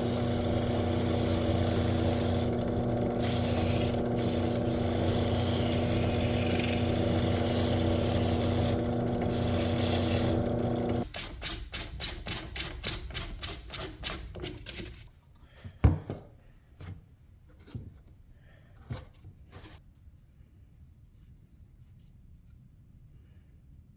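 A power tool runs steadily with a motor hum, working metal parts of a Bedrock 605C hand plane during restoration, and stops abruptly about eleven seconds in. Quick, even rubbing strokes follow, about five a second, for around four seconds, then a few separate knocks and clicks.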